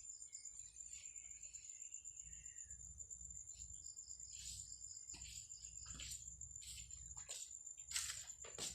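Crickets trilling, a steady high-pitched buzz, with short scratchy noises coming more often in the second half.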